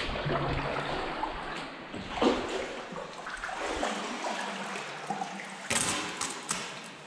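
Water splashing and trickling around a sea kayak paddled through a sea cave, with a few louder splashes of paddle strokes dipping in.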